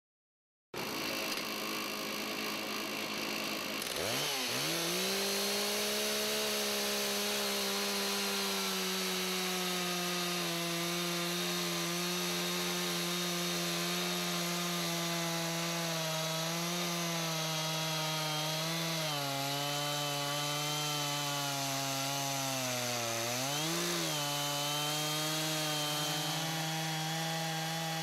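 Two-stroke chainsaw at full throttle, ripping a log lengthwise in a chainsaw sawmill frame. About four seconds in it revs up sharply, then holds a steady high engine note that sags slightly as the chain bogs in the cut. Near the end it dips and revs back up.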